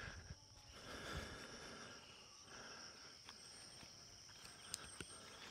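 Near silence with a faint, steady high chirring of insects, and a few light clicks near the end.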